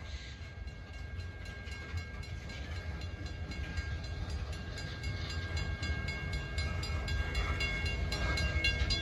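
Freight train cars rolling past a grade crossing: a steady low rumble of wheels on the rails, with steady high-pitched ringing over it, growing a little louder toward the end.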